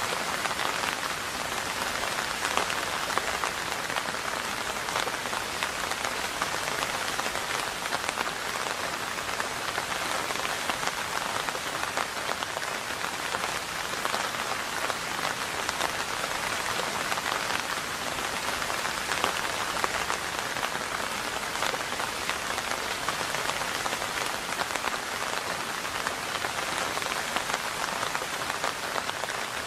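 Steady rain falling: an even, unbroken hiss with many small individual drop ticks through it.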